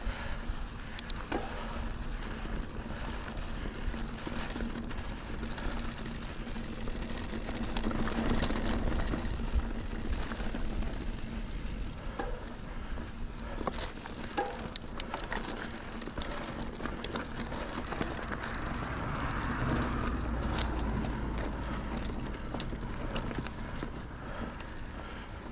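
Santa Cruz Bronson full-suspension mountain bike ridden along a dirt trail: steady tyre noise with scattered sharp clicks and rattles from the bike, and wind on the microphone, louder in two stretches, about a third of the way in and again near three-quarters.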